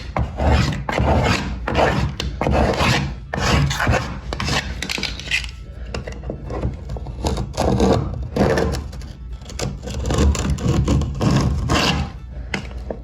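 Metal blade scraping old silicone caulk out of a shower joint in repeated, irregular back-and-forth strokes.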